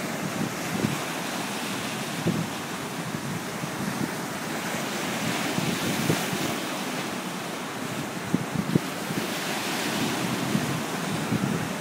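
Atlantic surf breaking over a rocky shoreline shelf and washing into the rock pools: a continuous rushing of water, with wind buffeting the microphone in short low thumps.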